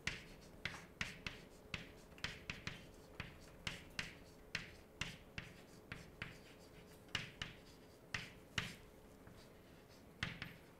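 Chalk writing on a blackboard: a quick, irregular run of faint short clicks and taps, about two or three a second, as each stroke of the letters lands on the board.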